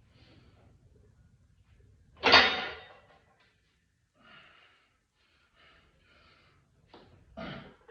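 A man breathing hard while lifting a barbell, with short forceful exhales at intervals; the loudest is a sharp exhale about two seconds in, and a few fainter ones follow near the end.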